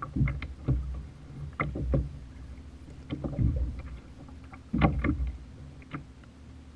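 Scattered knocks and thuds on a plastic fishing kayak as a large striped bass is held and unhooked in the angler's lap, over a low rumble of wind and water.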